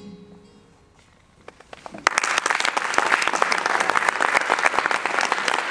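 Music fades out, then an audience breaks into applause: a few scattered claps, then full, steady applause from about two seconds in.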